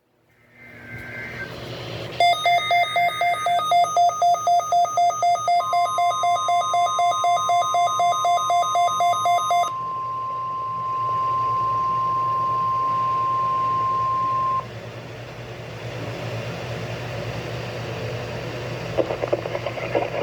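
NOAA Weather Radio weekly test alert: a weather radio receiver's alarm beeps rapidly, about three beeps a second, for around seven seconds. Partway through, the steady 1050 Hz warning alarm tone starts and holds for about nine seconds before cutting off, leaving radio hiss.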